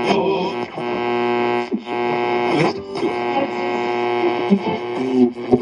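Panasonic RX-5150 boombox's FM radio being tuned up the dial: a steady hum and noise, broken several times by short fragments of stations that waver in and drop out as the pointer passes them.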